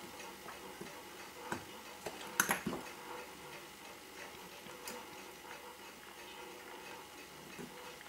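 A few light metallic clicks from steel tweezers on a Seiko 6217 watch movement as a small spring part is fitted and adjusted. The clicks are sparse and irregular, with the loudest pair about two and a half seconds in.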